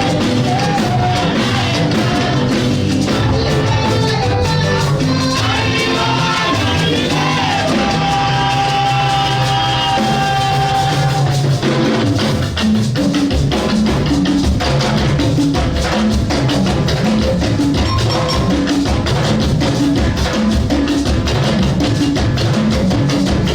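Gospel praise music with singing over a keyboard and drum kit. Partway through, a long held note gives way to busy, steady drumming.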